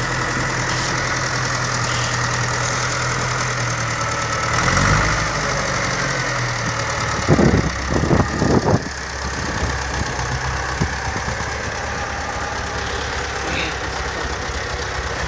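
Ursus 912 tractor's diesel engine running steadily, picking up briefly about five seconds in. About halfway through, a few loud short bursts of noise cut over it.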